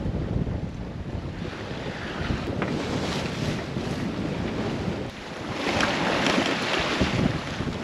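Wind buffeting the microphone aboard a sailboat under sail, a steady low rumble; about five seconds in it gives way to a louder hiss of water rushing and foaming along the hull.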